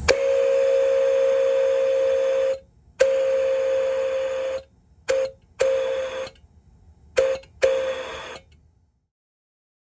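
Buckeye three-chime steam locomotive whistle blown on compressed air, sounding a steady chord with a rush of air. It gives two long blasts, then two pairs of short toots.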